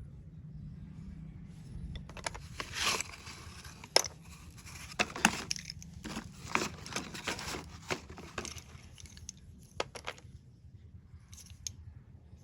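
Slate pencils handled close to the microphone: dry scraping and crackling with a run of sharp clicks, starting about two seconds in and thinning out near the end.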